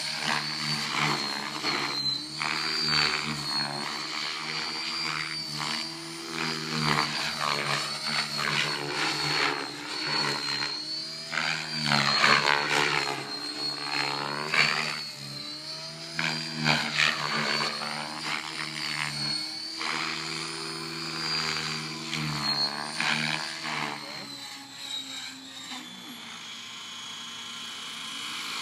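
Radio-controlled helicopter flying aerobatics: the rotor and drivetrain whine swoops up and down in pitch as it flips and rolls. In the last few seconds it settles to a steadier, quieter hum as it comes down low over the ground.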